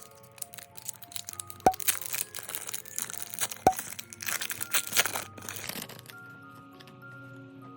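Crinkling and crackling of a foil Pokémon booster pack wrapper and cards being handled, with sharp clicks about every two seconds, over background music. The crinkling stops about six seconds in, leaving only the music.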